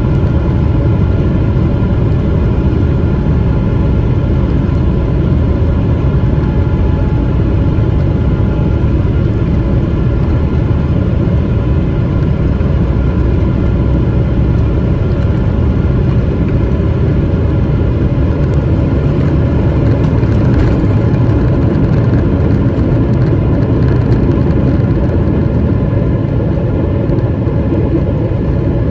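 Inside the cabin of a Boeing 777-300ER, its GE90 engines running at takeoff thrust through the takeoff roll, liftoff and initial climb: a loud, steady rumble with whining engine tones, some of which fade about nine seconds in.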